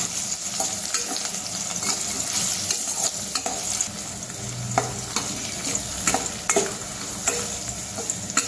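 Diced potatoes and peanuts frying in oil in a stainless steel kadhai, a steady sizzle, while a metal spoon stirs them, clicking and scraping irregularly against the pan.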